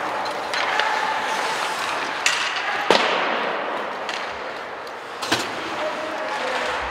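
Ice hockey game in a rink: a steady hiss of skates on ice and arena murmur, broken by sharp clacks of play, about two, three and five seconds in. The one near three seconds is the loudest.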